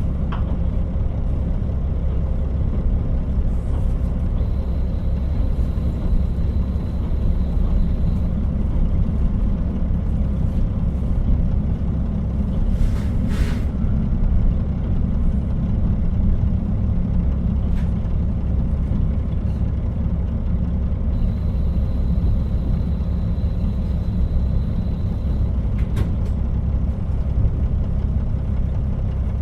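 KiHa 40 diesel railcar running along the line, heard from inside the car: a steady low rumble of engine and wheels on rail, with a few sharp clicks. A faint high thin tone comes and goes twice.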